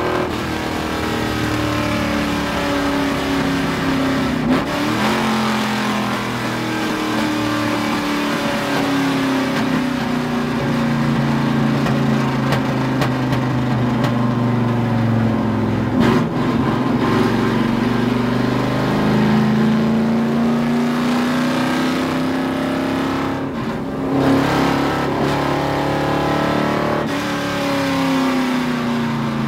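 Dodge Charger NASCAR-style stock car's V8 heard from inside the cabin at racing speed. Its pitch climbs slowly over long stretches and drops back several times, with a few short sharp knocks along the way.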